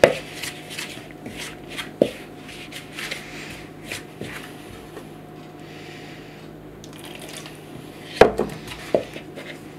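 Fingers rubbing and scraping crumbly instant mashed potato and water in a plastic mixing bowl, with a few sharper knocks against the bowl, one about two seconds in and two near the end.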